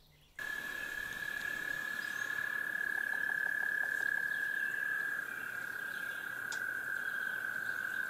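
A frog's long, steady high trill, cutting in abruptly about half a second in and dropping slightly in pitch about five seconds in.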